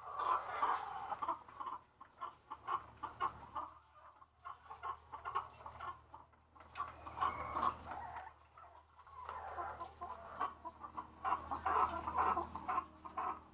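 White Leghorn laying hens in wire cages clucking, in waves of calls, with many sharp short clicks of beaks pecking at the feed trough.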